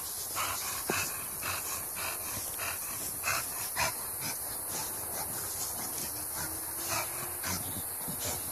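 Bulldog breathing hard and sniffing with its nose in loose dirt, in short, irregular puffs.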